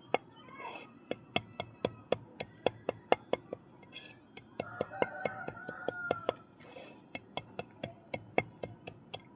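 Dry mud being crushed by hand: a quick run of sharp clicks and crackles, about three to four a second.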